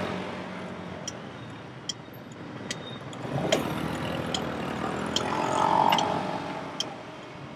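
Motorcycle ridden at low speed, its engine and road noise running steadily and swelling about three and a half seconds in and again around the six-second mark. A light click sounds about once a second throughout.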